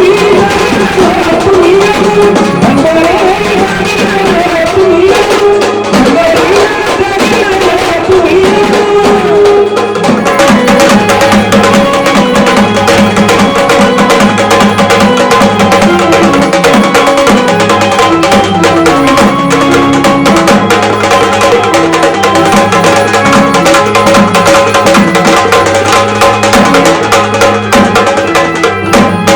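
Traditional Marathi gondhal devotional music: a sambal drum beating a steady rhythm with organ (electronic keyboard) accompaniment. A gliding melody line leads over them for the first ten seconds or so.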